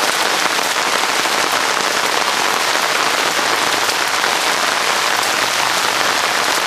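Heavy rain from the remnants of Tropical Storm Lee, falling as a steady, even hiss.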